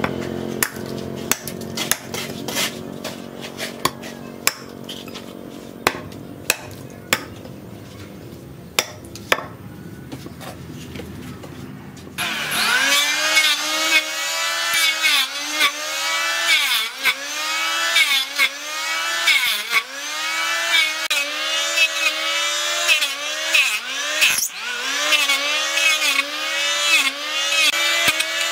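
A hatchet chopping into a wooden root, with sharp irregular strikes. About twelve seconds in, a handheld electric planer starts and runs with a loud whine whose pitch dips again and again as the blade bites into the wood on each pass.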